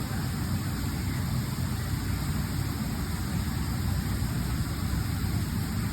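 Steady low mechanical rumble, like an engine or motor running, with no distinct knocks or hisses.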